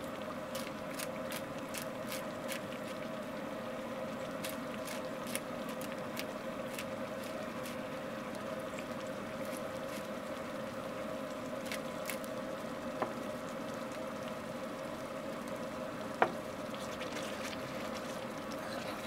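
Chili simmering in a pan on forge coals: liquid bubbling with scattered small pops and crackles over a steady hum, and one sharper tick near the end.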